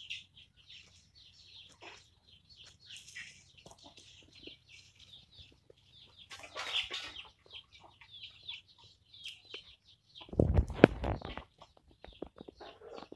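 Chickens clucking in short, scattered high calls over a faint low hum. About ten seconds in comes a loud burst of knocks and thumps lasting a second or so.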